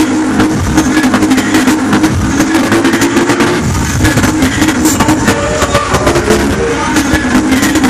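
Loud electronic dance music over a club sound system, with a fast steady beat and sustained synth notes that shift higher partway through.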